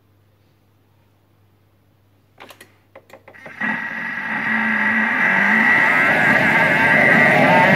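A few sharp clicks as the Thermomix speed dial is turned, then the Thermomix motor starts blending onion cream soup. Its whir builds louder over the next few seconds.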